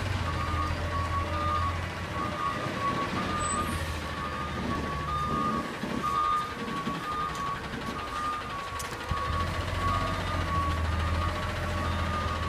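Republic Services front-loader garbage truck's diesel engine running as the truck drives and turns, its drone easing off in the middle and picking up again near the end. A steady electronic beeping alarm repeats over it the whole time.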